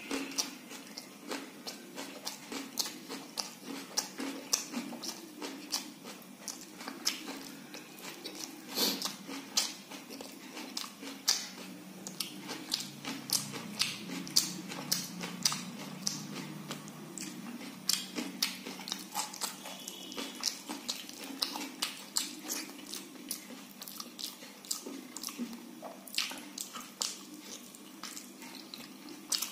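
A person chewing and lip-smacking while eating soft khichdi by hand, with many quick wet mouth clicks, and fingers squishing the rice-and-lentil mix.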